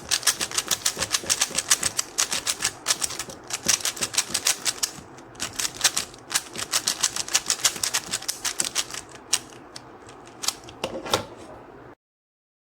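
QiYi Sail 3x3 plastic speed cube being turned fast, a quick run of clicking layer turns that thins to a few separate clicks near the end, then the sound cuts off suddenly.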